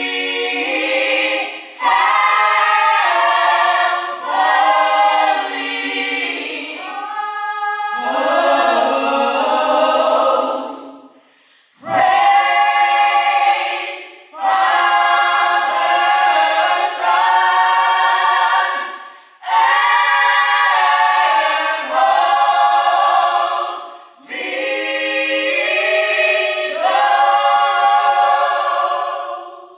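A choir singing a cappella, several voices in harmony, in phrases of a few seconds with short pauses between them.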